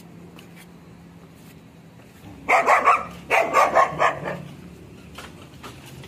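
Dog barking: two quick runs of several sharp barks each, about two and a half seconds in.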